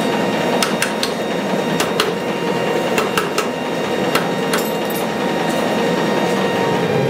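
Power forging hammer striking a red-hot steel bar on its anvil die, drawing it out to a point: a dense, continuous pounding clatter with sharp metallic knocks at irregular intervals.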